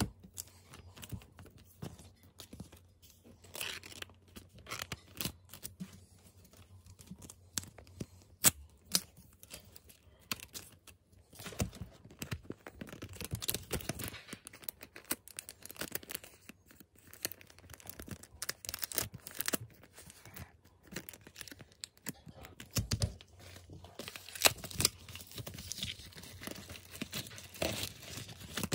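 Plastic photocard packaging handled by hand: sleeves, a rigid toploader and bubble-textured plastic wrap crinkling and rustling, with irregular sharp clicks and tearing sounds as the card is slid in and wrapped.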